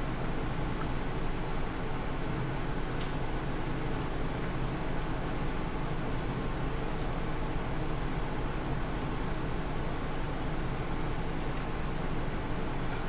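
Cricket chirping: about fourteen short, high chirps at uneven intervals over a steady hiss.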